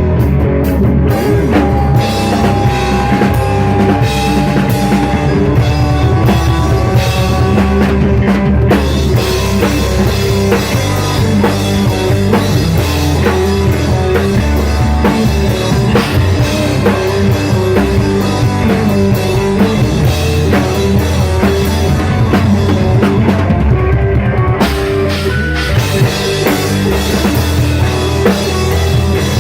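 Rock music with a full drum kit, bass and guitar playing at a steady loud level.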